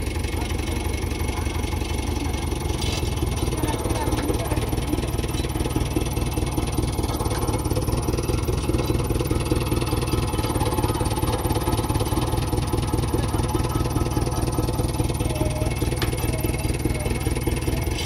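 Diesel engine of a JCB 3DX backhoe loader running steadily with an even, fast low throb, not revving.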